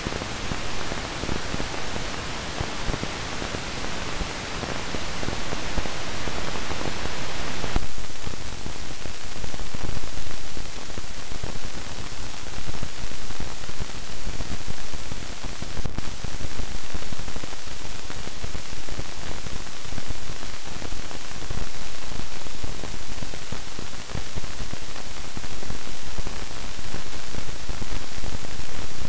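Amplified noise from old silicon Miniplast transistors played as sound: a steady hiss with small pops, then about 8 seconds in it changes to a louder, rougher noise of irregular pops as a second transistor's current jumps between levels, the popcorn noise (random telegraph noise) these faulty transistors produce.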